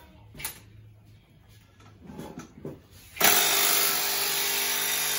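A handheld power tool starts about three seconds in and runs steadily at one speed, much louder than the light clinks of hand tools before it.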